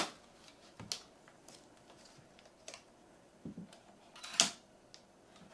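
Scattered clicks and knocks of a Canon EF lens being twisted onto a Canon EOS 20D body and the camera being handled, with a low knock about three and a half seconds in and a sharper, louder click about a second later.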